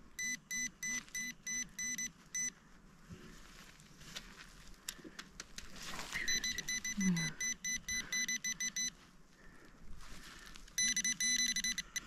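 Handheld pinpointer probe beeping in runs of about three or four short, evenly spaced beeps a second as it is worked through loose soil, signalling metal close by. The beeping stops and starts twice more, the last run quicker, with soft scraping of soil between the runs.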